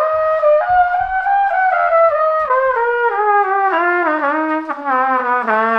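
All-plastic trumpet played through its plastic mouthpiece: a run of notes stepping down in pitch from high to low, ending on a held low note.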